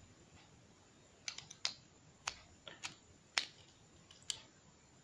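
Light, sharp clicks and taps of the small parts of a Taparia 840 precision screwdriver set being handled, about seven irregular clicks starting about a second in.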